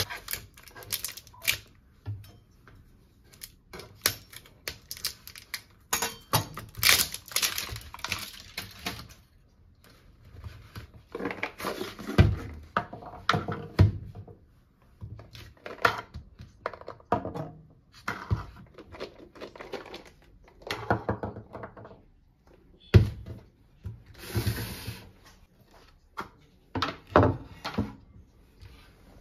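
Irregular taps, clicks and knocks of things being handled, with sharper thumps about 12 and 23 seconds in and a short hiss just after the second.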